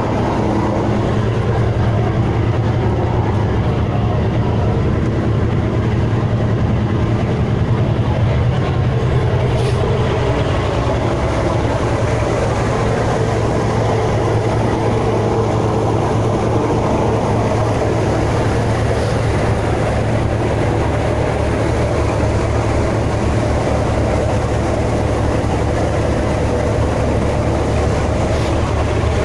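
Boat engine running steadily, a low, even drone with a hum underneath that does not change.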